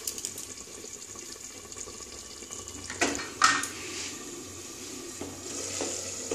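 Bori in mustard-and-poppy-seed gravy simmering and bubbling in a pan under a glass lid, with two short clicks about three seconds in; the bubbling grows louder near the end.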